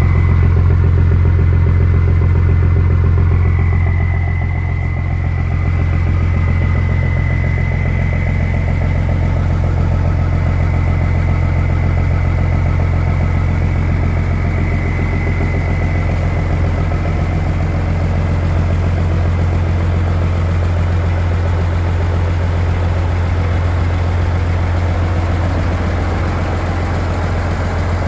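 Mercedes-Benz LS-1929 truck's OM 355/6 six-cylinder turbodiesel idling steadily with a deep rumble. A thin high whine rides over it and fades about halfway through.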